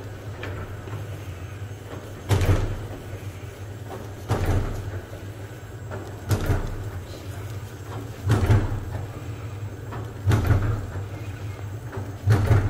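Bakpia filled-dough encrusting machine running: a steady low motor hum with a loud mechanical clunk repeating about every two seconds, six times, as the machine cycles through forming the filled dough balls.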